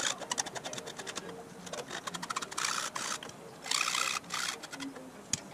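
Flat hand file scraping back and forth on a cast aluminum headlight mounting lug. It starts with a quick run of short, clicking strokes, then a few longer rasping strokes about a second apart.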